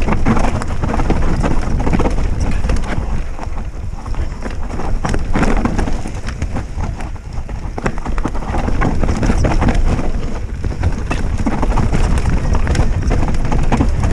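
Specialized Stumpjumper mountain bike descending a rough dirt trail at speed: steady wind rumble on the on-board action-camera microphone, with tyre noise on dirt and frequent clatters and knocks as the bike runs over roots and rocks.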